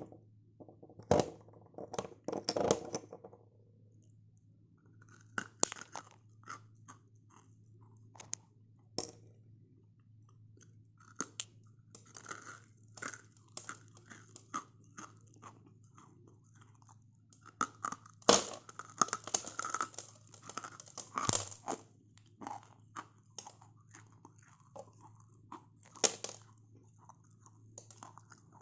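Dry Nakumatt clay being bitten and chewed close to the mouth: irregular crisp crunches and grinding chews, with the loudest run of bites a little past the middle.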